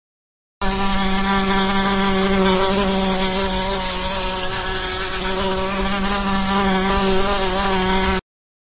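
Wasp buzzing in flight: one steady droning buzz whose pitch wavers slightly, starting and cutting off abruptly.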